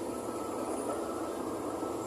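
Excavator and dump truck engines running steadily, with a faint high steady tone above the low rumble.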